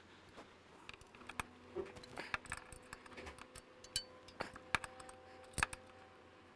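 Faint, irregular metallic clicks and taps of socket tools, extensions and a T45 bit, being fitted to and turning the hard-to-reach front bolt of a motorcycle engine protection bar.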